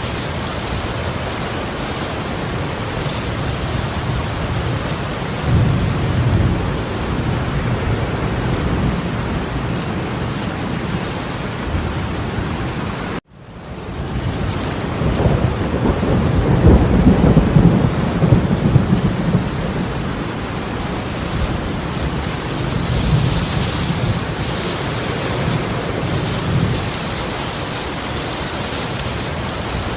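Heavy torrential rain pouring steadily, with deep low rumbles that swell up several times. The sound cuts out for an instant about 13 seconds in, then the rain resumes.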